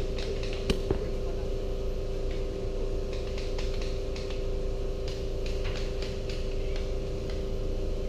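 A steady hum holding two fixed tones, with two sharp clicks about a second in and faint irregular ticking.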